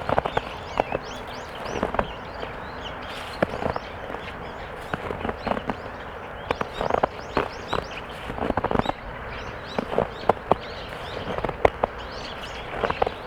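Footsteps crunching and squeaking in snow, an irregular series of short crunches at walking pace.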